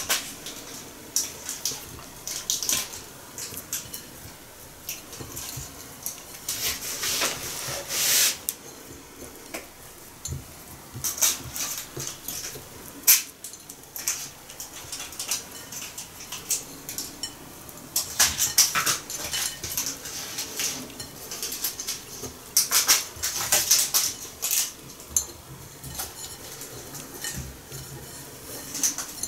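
Fingers pressing and scraping a crumbly mixture of chopped nuts and date paste on a ceramic plate, giving bursts of crackly scrapes and small clicks off and on.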